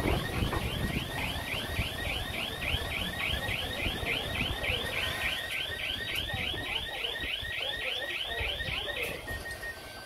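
Bulldozer's reverse alarm warbling, a quick rising sweep repeated about four times a second, over the low rumble of its diesel engine; the alarm cuts off about nine seconds in.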